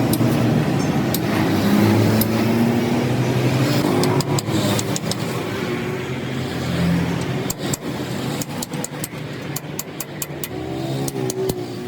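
A motor vehicle's engine running, strongest in the first few seconds and then dropping away, with a scatter of sharp clicks and taps in the second half.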